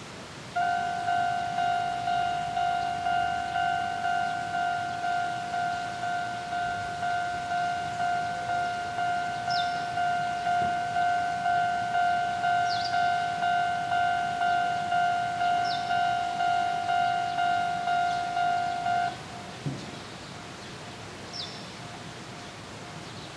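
Japanese railway level-crossing alarm ringing its repeating electronic 'kan-kan' tone, about one and a half strikes a second, warning of an approaching train; it stops suddenly near 19 seconds in. A few short high chirps and a single low thump are heard alongside.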